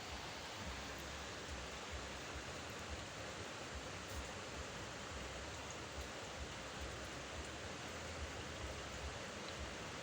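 Steady rushing noise of flowing water, with an uneven low rumble of wind on the microphone.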